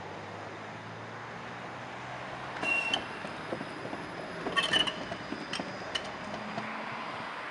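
Electric tram running on its rails: a steady low hum, then metallic clanks with short high-pitched ringing squeals about three seconds in and again around five seconds in, followed by a few sharp clicks.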